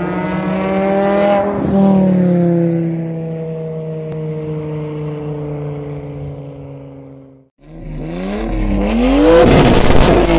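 A car engine note lifts briefly, then falls slowly in pitch and fades out. After a short break, a Nissan 240SX is revved loudly, its engine climbing in pitch for about two seconds and then dropping back.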